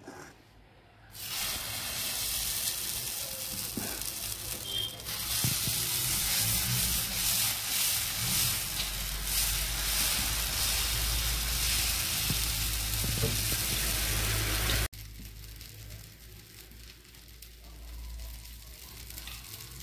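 Dosa batter sizzling on a hot iron tava as it is spread into a round with a ladle. The hiss starts about a second in, grows louder, then cuts off abruptly about fifteen seconds in, leaving a much fainter sizzle.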